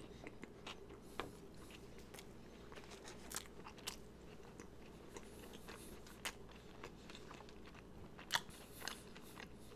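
Close-miked chewing of a bite of chili dog: soft, scattered wet mouth clicks and smacks, one louder near the end.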